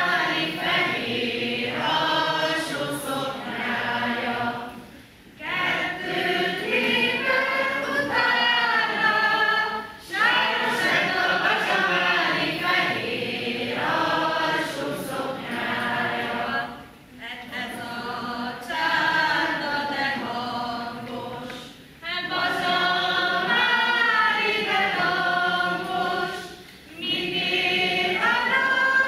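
A hall full of children and adults singing a song together without accompaniment, line by line, with a short pause for breath every five seconds or so.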